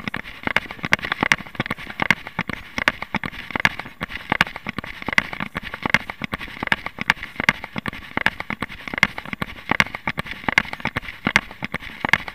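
A runner's footfalls on paving, with the carried camera knocking and rustling at each stride, as a quick, rhythmic run of sharp knocks and crackles.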